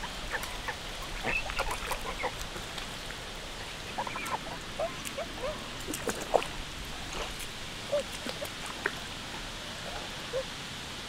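Domestic geese calling: many short honks and gabbling calls at irregular intervals, over a steady background hiss.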